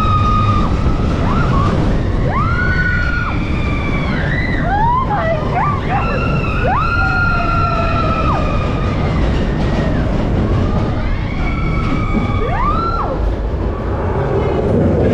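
Roller-coaster riders screaming: several long, high, overlapping screams that rise, hold and fall away, over the steady low rumble of the Expedition Everest coaster train running on its track.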